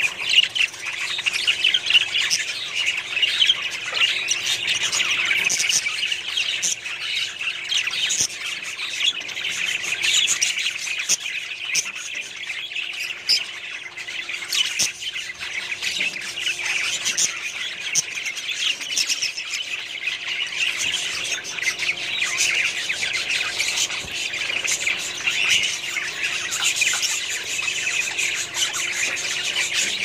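A flock of budgerigars chattering: dense, continuous chirping and squawking with no pause.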